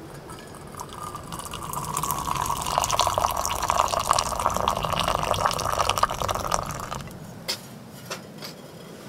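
Liquid pouring steadily into a container for about six seconds, then stopping, followed by a few light clicks.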